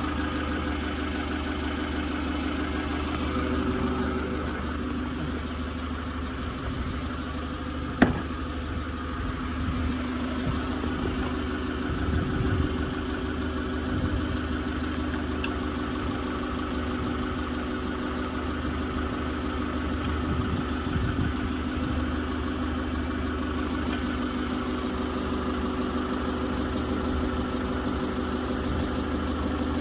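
Forklift engine idling steadily, with one sharp knock about eight seconds in.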